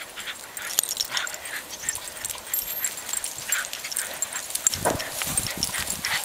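Dogs moving about, with scattered clicks and rustles and a few faint short dog sounds.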